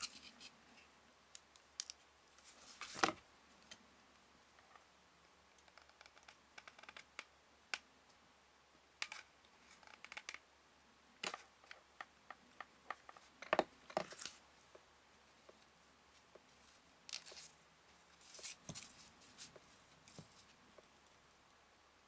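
Scattered light taps, clicks and scrapes of chipboard pieces and craft tools being handled on a craft mat. The loudest knocks come about three seconds in and again around fourteen seconds.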